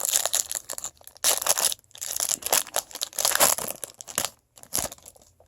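Foil wrapper of a trading card pack being torn open and crinkled, in several rustling bursts.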